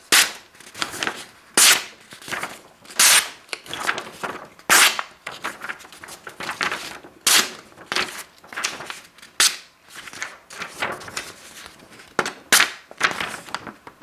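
Ontario Utilitac II folding knife's AUS-8 steel tanto blade slicing through a sheet of paper: a rapid series of short, crisp cutting strokes, about one or two a second. It is a paper-slicing sharpness test, and the blade cuts cleanly, close to razor sharp.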